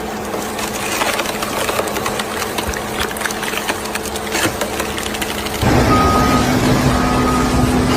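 Engine running steadily with scattered clicks and knocks. About six seconds in it cuts suddenly to a louder, rumbling engine with short high beeps repeating.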